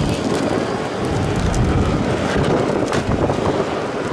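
Wind buffeting the microphone in a low, uneven rumble, mixed with car noise.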